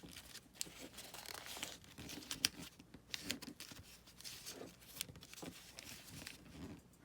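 Sheet of craft paper rustling and crinkling as it is handled and folded, in irregular soft crackles, with one sharper crackle about two and a half seconds in.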